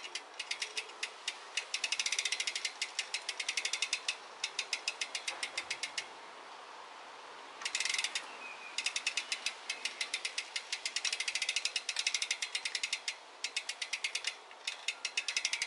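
BMX rear hub's ratchet clicking rapidly as the cranks are turned backwards by hand. The clicks come in several runs, with a pause of a few seconds around the middle.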